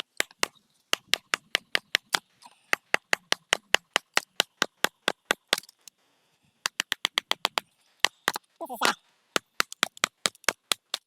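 Batoning firewood: a Mora knife driven through a piece of wood by rapid strikes of a wooden baton on its spine, sharp knocks about three a second in runs with a short pause partway through.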